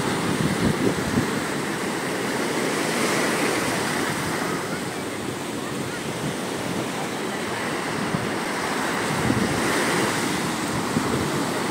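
Sea surf breaking and washing up the beach, a steady rushing, with wind buffeting the microphone.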